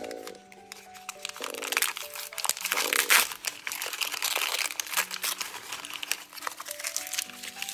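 Plastic toy packaging being crinkled and torn open by hand, dense irregular crackling, over light background music.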